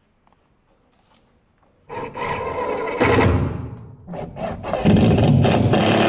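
Cordless drill driving screws to fasten a newly installed window's frame. It runs in two stretches: one about two seconds in and a longer one from about five seconds in.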